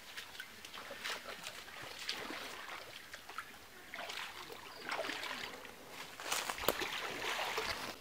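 Shallow river water sloshing and splashing in repeated surges about once a second, as someone wades through it, with a few sharp knocks a little past the middle.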